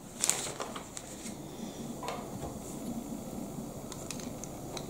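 Plastic Lego pieces handled and pressed onto a small Lego truck build: light plastic clicks and rubbing, with a short rustle just after the start.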